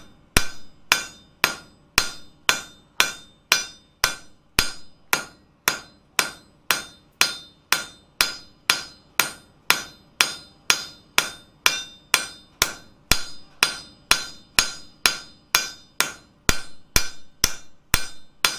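Cross-peen hammer striking hot steel on an anvil, spreading the end of the bar into a fan tail. Steady blows come about twice a second, each with a short metallic ring.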